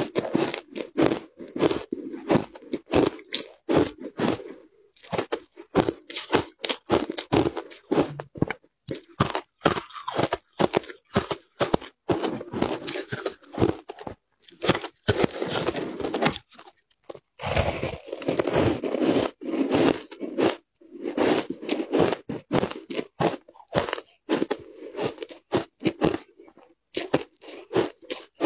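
Frozen matcha ice being bitten and chewed close to the microphone: dense, crackly crunching in repeated bouts with brief pauses.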